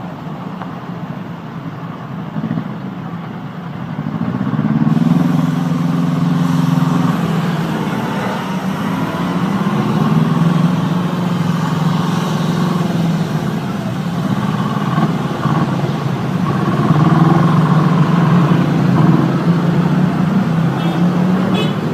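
Heavy vehicle's engine running, its pitch rising and falling as it revs.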